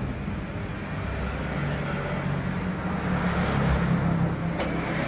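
Steady low engine hum of road traffic that swells a little in the middle, with a couple of short clicks near the end.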